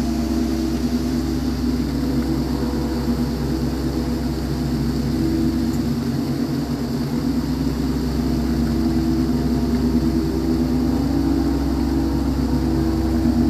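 Large suspended gong played continuously with a mallet: a sustained drone of many overlapping tones that swells and eases in waves, with no separate strokes standing out. The steady rush of a waterfall runs underneath.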